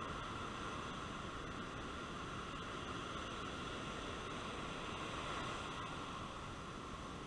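Ocean surf breaking and washing up a sandy beach: a steady rushing noise with no distinct breaks.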